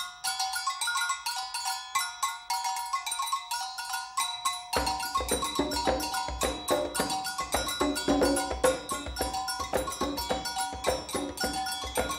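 Percussion ensemble playing a Brazilian carnival rhythm: several sets of double bells ring interlocking patterns alone, then hand drums join about five seconds in.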